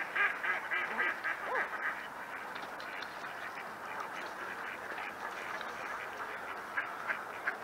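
Mallard ducks quacking: a quick run of quacks in the first couple of seconds, then steady quacking and chatter from the flock.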